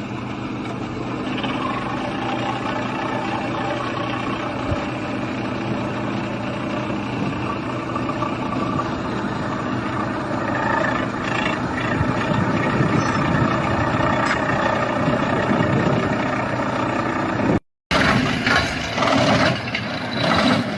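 Excavator diesel engine running steadily under hydraulic load; it grows louder and rougher about ten seconds in. After a brief dropout near the end it comes back in loud surges.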